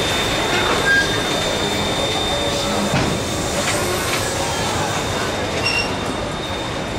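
Heritage passenger carriages and a water tank wagon rolling past on the rails: a steady rumble of wheels on track with a thin, steady high-pitched wheel squeal and a couple of knocks.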